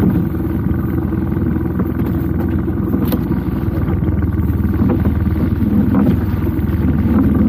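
Small boat's outboard motor running steadily at low speed, with a brief sharp knock about three seconds in.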